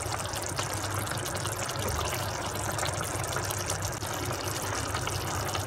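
Raw mango mutton curry simmering in an open pan on the stove, a steady even hiss.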